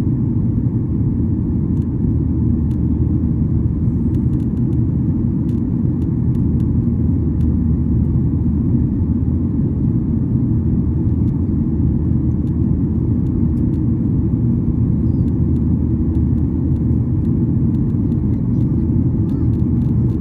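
Cabin noise of a Boeing 737-800 heard from a window seat: its CFM56-7B jet engines and the airflow make a steady, loud, low rumble that does not rise or fall.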